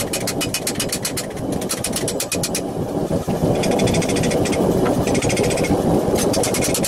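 Rapid, light hammer taps on a sheet-steel gauntlet over a metal stake, about six a second, in runs broken by short pauses, as the knuckles are teased into shape. A steady machine drone runs underneath and grows louder partway through.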